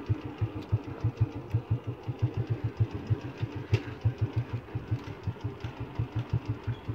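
A vehicle engine running with a steady, low, even pulsing of about seven beats a second.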